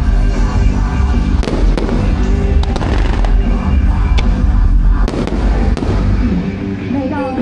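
Fireworks going off in quick succession, sharp bangs and crackling, over loud music with a heavy bass.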